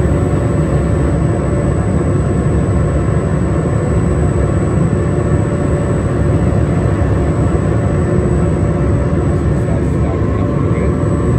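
Bench shoe-finishing machine running with a steady hum, its spinning buffing wheel pressed against a white leather sneaker to scuff and dirty it for a distressed look.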